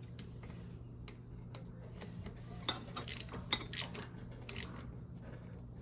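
Hand socket ratchet clicking in short, irregular runs of light ticks while a carburetor screw is snugged down.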